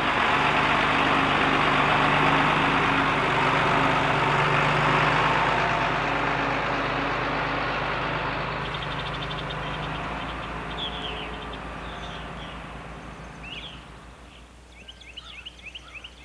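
A large engine or machine running steadily with a loud rushing noise, fading away over several seconds. As it dies down, small birds chirp and trill, more often near the end.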